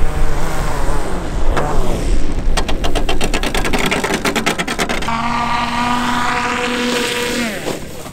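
RC model airplane's motor and propeller running, its pitch shifting with the throttle, with a rapid fluttering a few seconds in, then a steady tone that winds down in pitch near the end as the power is cut.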